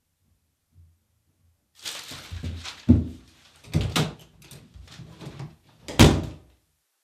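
A door in a small tiled bathroom being unlocked, opened and then shut, with the loudest thud about six seconds in as it closes. Before that come a couple of seconds of shuffling and knocks as someone gets up and moves to the door.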